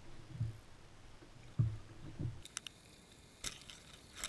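Soft low thumps of fishing gear being handled aboard a kayak, then a few sharp clicks over a faint steady hiss from about halfway through.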